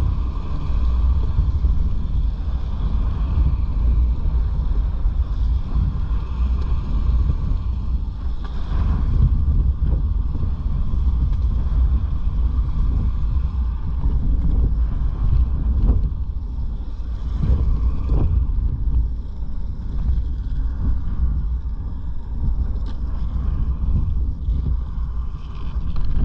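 Strong wind buffeting the microphone: a loud, steady low rumble with no let-up.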